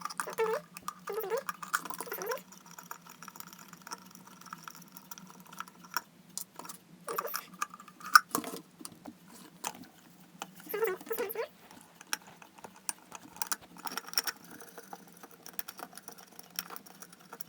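Irregular small metallic clicks, taps and scrapes of a hand tool working the nuts loose from an electric kettle's dry-boil thermostat.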